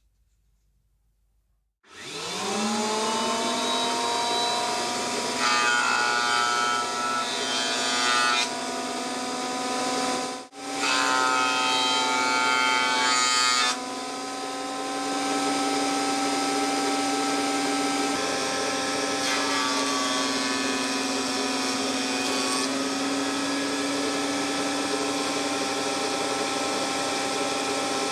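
Electric planer-thicknesser switching on about two seconds in, its motor rising in pitch to speed and then running steadily. It gets louder and rougher twice as the cutter block planes a wooden broom handle, with lighter cutting later on.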